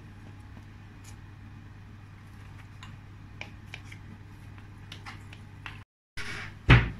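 A serving spoon scraping and knocking through cooked rice in a pot near the end, the second scrape the loudest sound, over a low steady hum with a few faint light clicks.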